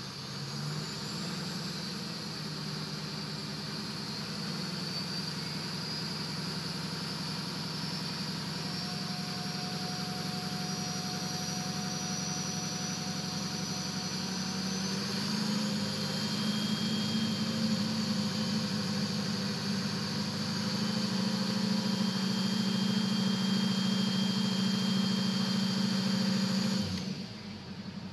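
Duramax diesel engine running with a thin, high turbocharger whistle that rises slowly in pitch over the engine's drone. The engine gets louder from about halfway and drops away sharply near the end.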